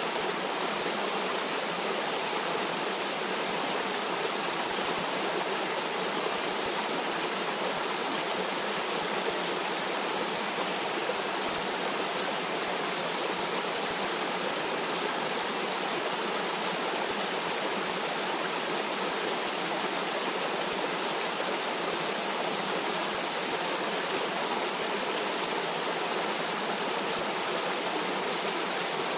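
Flowing stream water rushing steadily, an even hiss with no distinct splashes or gurgles.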